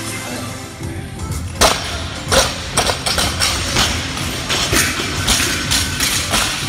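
Barbell with rubber bumper plates dropped onto the gym floor from overhead after a snatch, a loud thud about a second and a half in, followed by smaller thuds and clanks of plates. Music plays throughout.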